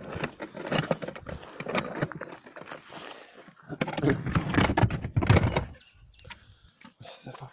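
Knocking and scraping of a white cooler box being handled by a rope on gravelly dirt, with rustling handling noise, loudest for a couple of seconds around the middle and quieter near the end.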